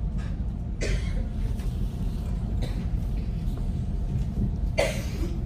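Steady low room rumble, with two short coughs: a light one about a second in and a louder one near the end.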